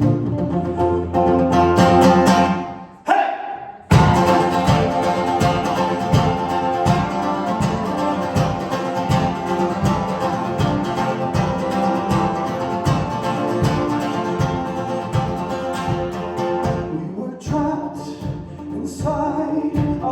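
A band playing an instrumental passage live. Sustained chords break off briefly about three seconds in, then an even driving beat comes back in about four seconds in under the held chords, and the pattern changes near the end.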